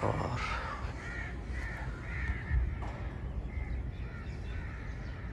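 Crows cawing repeatedly, short harsh calls coming about twice a second.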